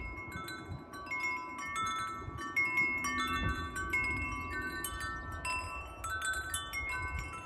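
TKVAZK sympathy wind chime, a set of hollow tubes, ringing irregularly as the striker swings in the wind. Several clear notes overlap and sustain as they fade, over a low rumble.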